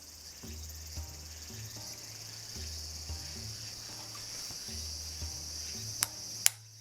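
Steady high-pitched insect chirring, crickets, over background music with a repeating low bass line; two sharp clicks come near the end.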